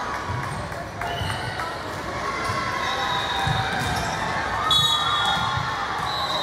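Volleyballs thudding now and then on a gym floor, with players' and spectators' voices echoing in a large hall and a brief high-pitched tone about five seconds in.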